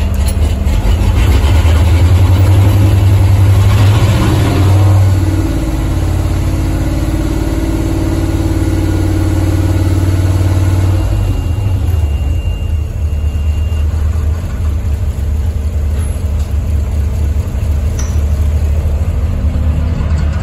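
GM 6.0L gasoline V8 engine running, held at a raised speed for the first half, then settling back to a steady idle about eleven seconds in.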